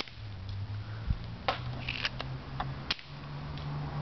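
Sharp plastic clicks and snaps from a K'NEX turret gun: one at the start as it fires, then several more between about one and a half and three seconds in as the mechanism is worked, over a low steady hum.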